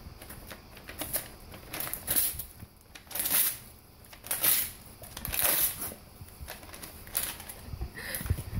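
Golden retriever tearing paper coupon flyers with its teeth: a string of short paper rips roughly a second apart, with crinkling of paper between.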